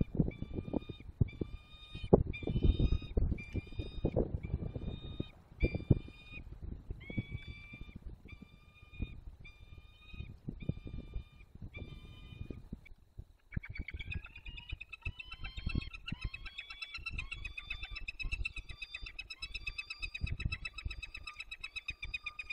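Peregrine falcon calling: an even series of ringing calls, about one and a half a second, turning about two-thirds through into a faster, unbroken chatter of calls. Low thumping noise runs under the calls in the first half.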